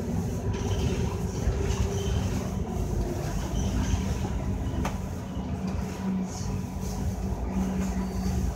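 Scania K310UD double-decker bus running, a steady low engine drone with rumble. A held hum grows stronger briefly around the middle and again near the end.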